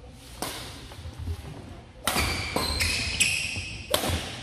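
Badminton racket strikes on a shuttlecock during a fast doubles rally: sharp hits, one faint one early and then four loud ones coming quickly in the second half, each with a short ringing tail, the last an overhead smash.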